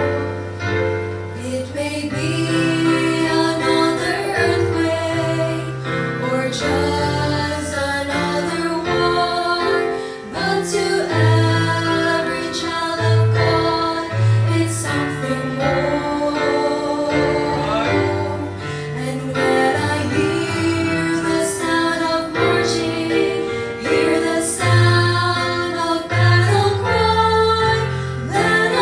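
Gospel song sung by a vocal trio in harmony over instrumental backing, with a bass line moving beneath the voices.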